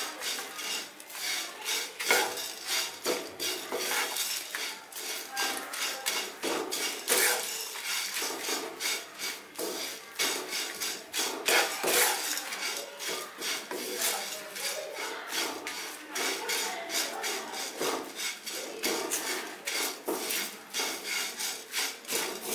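Spatula stirring and scraping curry leaves, dried red chillies and urad dal around a non-stick kadai, dry-roasting them, with the leaves rustling. Quick repeated strokes, two or three a second.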